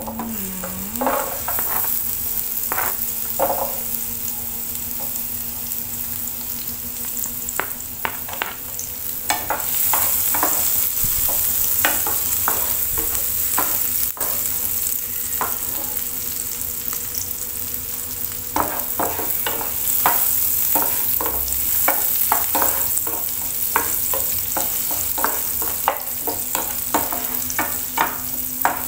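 Chopped red onion sautéing in hot oil and butter in a nonstick frying pan: a steady hissing sizzle. Quick taps and scrapes of a wooden spatula stirring the onion against the pan come through it, thickest in the second half.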